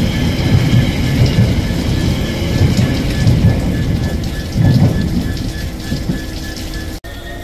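Heavy rain pouring down, a steady hiss with an irregular low rumbling underneath. The sound cuts off abruptly near the end.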